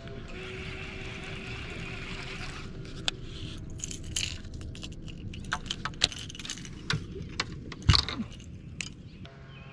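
Irregular clicks, knocks and rattles of fishing rods and tackle being handled on a bass boat's deck, the loudest knock about 8 s in, after a few seconds of steady hiss at the start.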